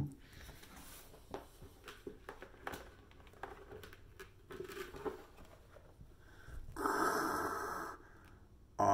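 Faint rustling and small knocks, then a steady breathy hiss about seven seconds in that lasts about a second and a half.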